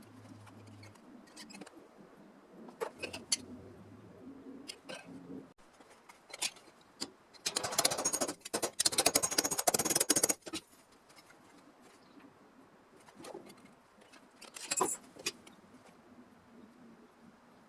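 Metal tools and parts clinking and being handled, with about three seconds of harsh scraping of metal near the middle.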